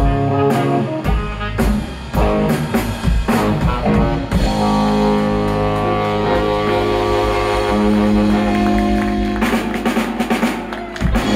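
Live band of saxophone, electric guitars, bass guitar and drum kit playing an instrumental: a rhythmic riff over regular drum hits, then a long held final chord from about four seconds in, closed by a flurry of drum hits near the end.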